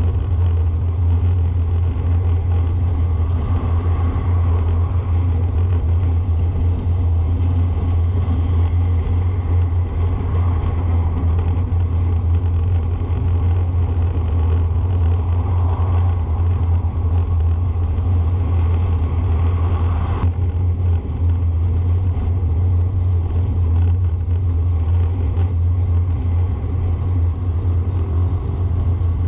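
Steady low rumble of a moving vehicle heard from the vehicle itself as it drives along a paved road: engine drone and road noise.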